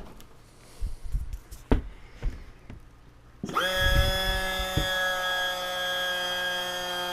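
A few light clicks and knocks, then about halfway in a small electric hydraulic pump starts with a brief rising whine and runs on steadily, pressurising the model's hydraulic landing gear.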